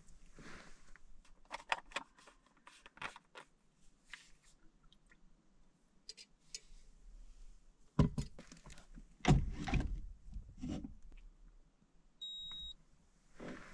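Gear being handled in a small enclosed space: light clicks and rattles, two heavier thumps about eight and nine and a half seconds in, then a short high beep near the end.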